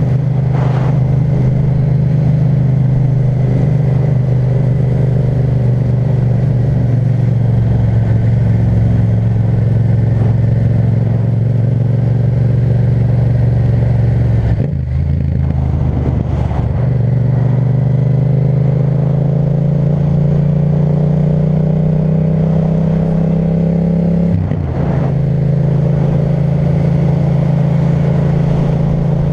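Yamaha MT-07's 689 cc parallel-twin engine through an Akrapovic titanium exhaust, running under way at steady throttle. Its note climbs slowly and breaks off briefly twice, about halfway and near the end, as at gear changes.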